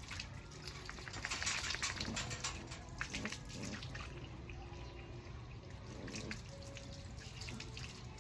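Running water with scattered small clicks and rustles, densest in the first few seconds.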